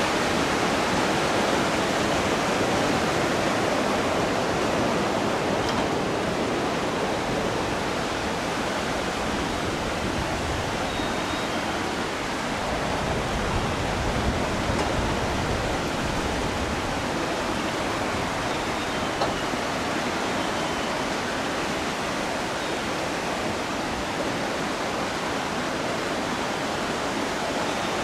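River water rushing steadily through a weir, a continuous even hiss with no breaks.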